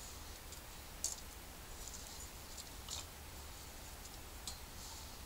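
Small wood fire crackling, a few sharp pops at uneven intervals over a low steady rumble.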